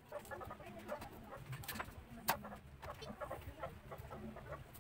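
Kitchen knife cutting and scraping the tough skin off cassava roots, with a few sharp clicks, the loudest a little past halfway. Faint bird-like calls carry on underneath, over a low hum.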